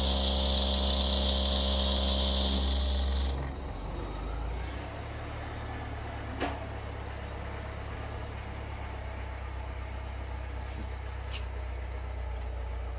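Car subwoofers in a ported SPL box, driven by a DB Sound DBMT5000.1D amplifier, playing a loud, steady deep bass test tone (an SPL burp) with a high buzz over it. It cuts off about three seconds in, leaving a quieter low hum.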